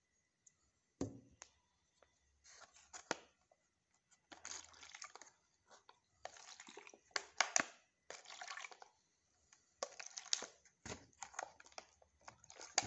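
Water poured from one thin plastic cup into another in several short pours, with crinkling and clicks from the handled cups.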